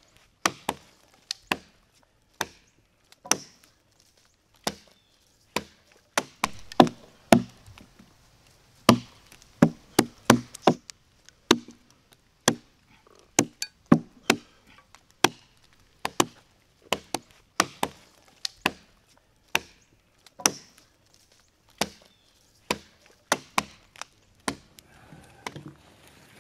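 Adzes chopping into a log to hollow out a dugout canoe: sharp, irregular wooden strikes about one to two a second, sometimes two close together as two men work at once.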